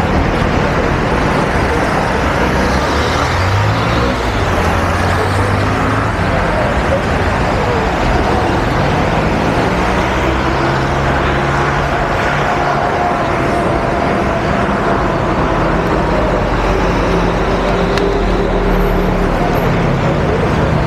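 Steady city street traffic on a busy multi-lane avenue: car engines running and passing, over continuous road noise, with engine pitch drifting up and down as vehicles speed up and slow.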